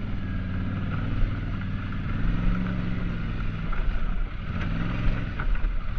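ATV engine running under way, its pitch swelling and easing slightly with the throttle, with a few knocks in the second half.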